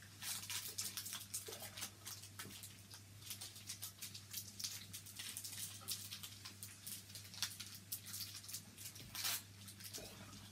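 Small plastic wrappers of individually wrapped marshmallows crinkling as they are picked open by hand: an irregular run of soft crackles and clicks, over a steady low hum.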